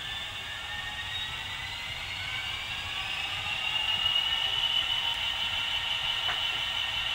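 The DCC sound decoder of a Bachmann OO-gauge Class 66 model plays a recorded Class 66 diesel engine through its small speaker while the model stands still, with a high whine rising slowly in pitch. There is one faint click about six seconds in.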